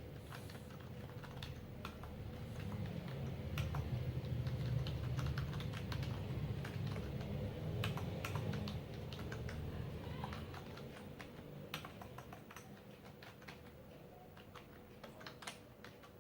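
Typing on a Logitech K480 Bluetooth keyboard: irregular, quick key clicks over a low steady hum.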